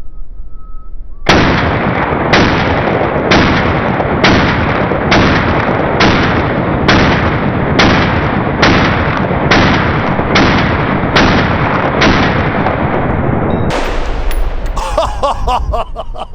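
AR-15 rifle firing about thirteen shots in steady succession, roughly one a second, each with a long rumbling tail. Near the end the shots give way to a rough, hissing noise.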